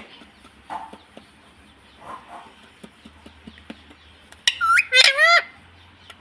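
Pet ring-necked parrot giving a quick run of loud, harsh screeching calls about four and a half seconds in, after a few faint chirps.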